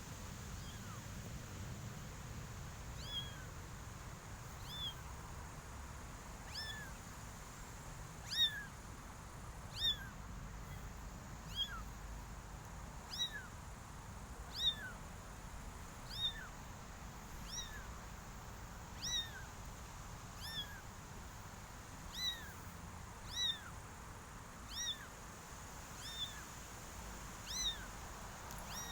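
Very young kitten mewing over and over: short, high-pitched cries about every second and a half, louder from a few seconds in.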